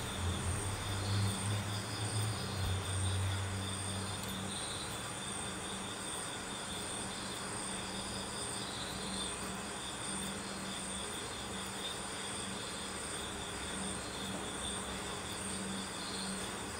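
Steady background hum and hiss with a thin high whine; a deeper hum is stronger for the first four seconds, then fades.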